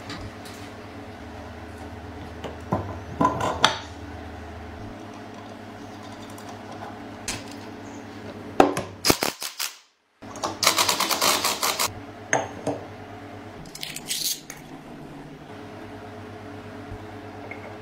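Metal parts and tools clinking, clicking and rattling as they are handled, in bursts, over a steady low hum. The sound cuts out briefly about ten seconds in.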